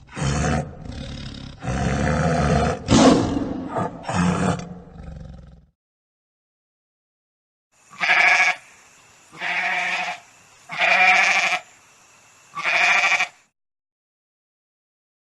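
Animal calls: a harsh, growling call rises and falls in several swells for about five seconds. After a short silence come four short bleats, evenly spaced about a second and a half apart.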